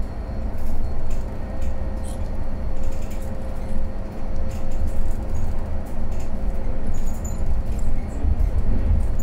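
Cabin sound of a 2019 Mercedes-Benz O530 eCitaro battery-electric city bus riding along: a low rumble with a steady whine held at one pitch, and light rattles now and then.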